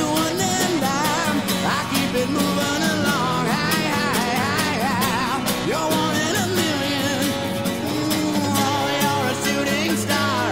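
Background music: a rock song with guitar and a steady beat, carrying wavering lead lines.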